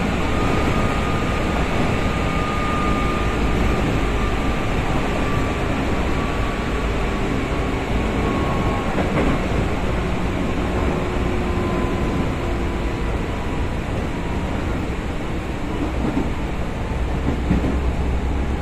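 Interior running noise of a JR 203 series EMU motor car at speed: steady rail and wheel rumble with a thin high whine that drifts slowly lower in pitch. A few faint clicks and a rise in low rumble come near the end.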